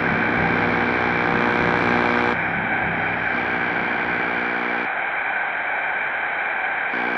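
Loud steady electronic static hiss with a layered hum beneath it, played over a sound system as a broken-transmission effect. The hum thins out partway through, drops away about five seconds in, and comes back near the end.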